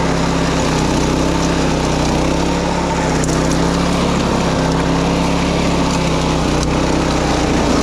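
Small petrol engine of a wing mower, the kind used to cut grass on paddy levees, running steadily at a constant working speed.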